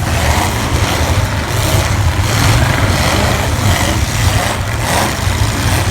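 Demolition derby cars' V8 engines running together, a loud, steady, low engine sound with no single crash standing out.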